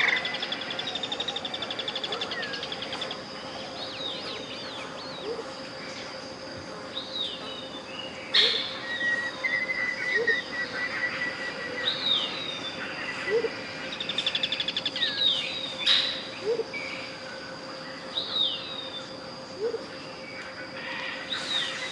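Tropical jungle birds calling, with repeated short falling chirps, a fast trill in the first few seconds and a few sharp calls. Under them runs a steady pure 528 Hz tone, with a fainter high steady tone above.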